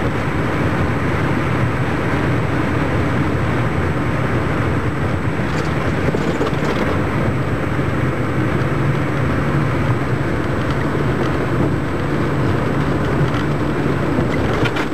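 Steady road and engine noise inside a car's cabin at freeway speed.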